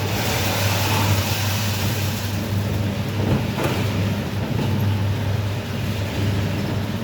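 Rotary pellet dryer machine running: a steady low hum with an even rushing noise over it.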